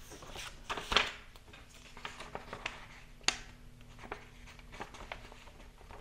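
A paper note card and pen being handled: soft paper rustling with a few short, sharp taps and ticks, the loudest about a second in and another just after three seconds.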